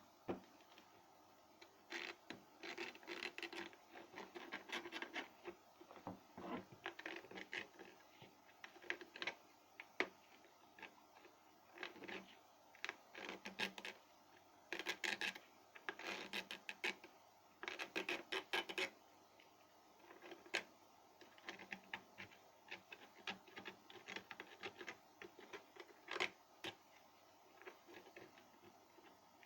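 Hands working on small hard parts of a kettle under repair: irregular bursts of scraping and rubbing with sharp clicks and light knocks, broken by short pauses.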